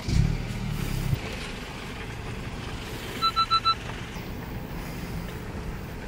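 A car engine started by push-button, louder for about a second as it catches and then settling to a steady run. About three seconds in, the car's electronic chime gives four quick beeps.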